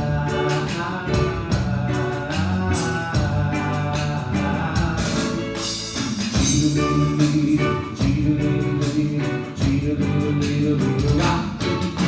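Gospel-style band music with a steady drum beat and singing.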